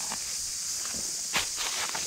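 Footsteps on a dirt hill trail, irregular scuffs and steps with one sharper step about one and a half seconds in, over a steady high hiss.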